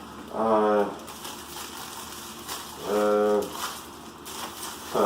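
Packing material in a box being handled and squeezed, with two short squeaky tones of about half a second each, one near the start and one about three seconds in.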